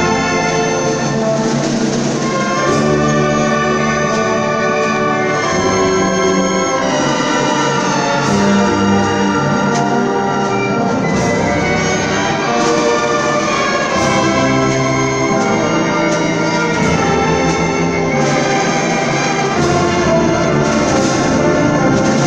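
Symphony orchestra playing a loud passage with prominent brass, trumpets and trombones over the strings, chords held and changing every second or two.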